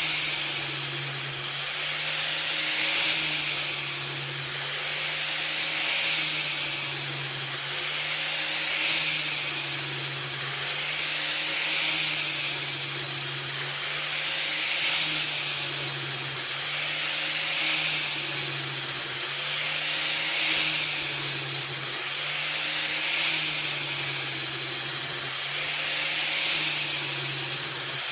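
Angle grinder running steadily while its grinding wheel is passed back and forth along the edge of a steel mower blade, a grinding hiss swelling with each pass about every two seconds and the motor's pitch dipping slightly as the wheel bites.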